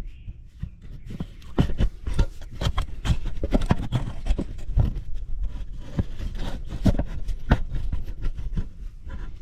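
Hand tools clicking and scraping on the bolts of a leaking hydraulic pump cover as they are tightened, in many irregular sharp clicks over a low rumble.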